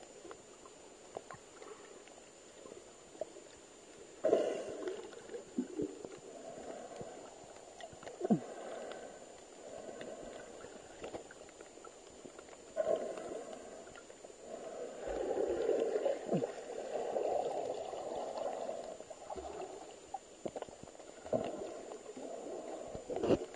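Muffled water noise picked up underwater: gurgling and sloshing in irregular swells, with scattered small clicks and knocks.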